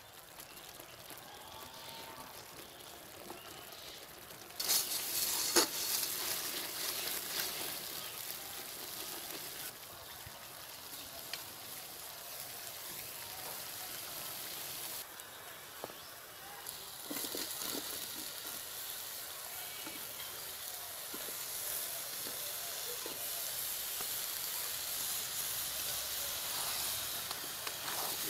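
Spice paste sizzling as it fries in oil in an iron kadai, with a metal spatula scraping and stirring now and then. The sizzle grows louder about five seconds in.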